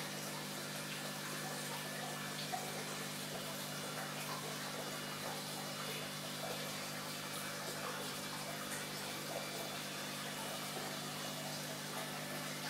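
Aquarium filter and pump running: a steady rush of moving water with a low, even hum underneath.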